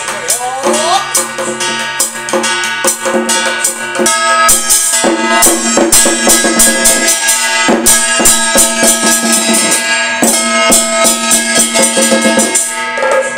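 Traditional Taiwanese marionette-theatre percussion band playing: fast, dense drum and cymbal strikes over ringing gong tones. It grows louder about four seconds in.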